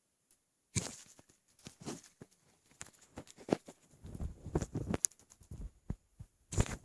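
Sounds from a belly swollen with a gallon of milk: a rapid, irregular run of small clicks, knocks and gurgles with a low rumble through the middle, starting about a second in. The stomach is overfull and holds trapped air bubbles.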